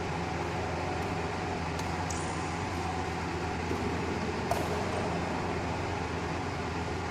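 Badminton rackets striking the shuttlecock during a rally: a few sharp hits, the loudest about four and a half seconds in, over a steady hum.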